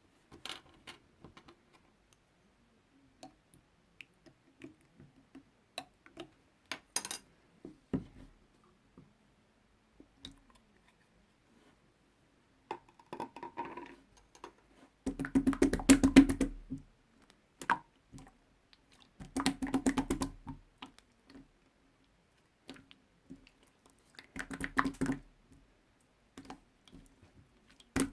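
Slime being handled: sticky clicks and small pops at first, then three longer bursts of dense crackling squishing in the second half.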